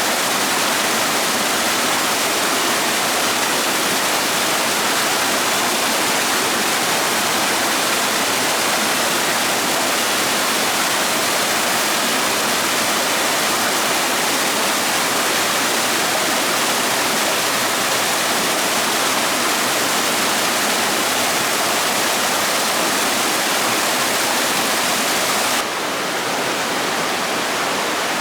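Steady rushing water, like a stream or small waterfall, an even loud hiss; near the end it steps down slightly and loses some of its highest hiss.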